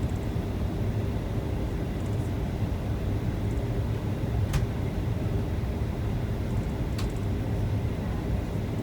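Steady low drone of an airliner's cabin noise, from jet engines and airflow, heard from a window seat. Two brief sharp clicks come about four and a half and seven seconds in.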